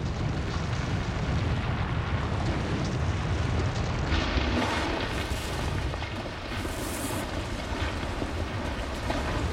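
Deep, continuous rumbling of an erupting volcano and flowing lava. Brief hissing rushes rise over it about four seconds in and again around seven seconds.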